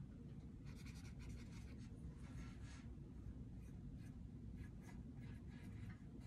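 Faint scratchy strokes of a small 1/8 inch liner blender brush dragging acrylic paint across a painted board. There is a run of strokes about a second in, then a few shorter strokes near the end, over a low steady room hum.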